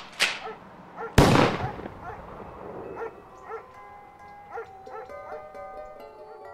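A single shotgun blast about a second in, dying away over about a second, then soft music with held notes.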